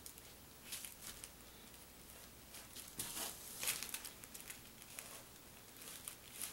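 Paint pen nib scratching on a paper hang tag in short strokes, faint and scratchy, coming in small clusters.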